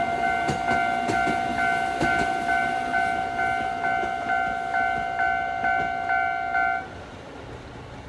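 Japanese railway level-crossing warning bell ringing in steady electronic strokes, about two a second, while a Sangi Railway Hokusei Line narrow-gauge train clatters through the crossing in the first few seconds. The bell stops about seven seconds in, the sign that the train has cleared and the crossing is opening.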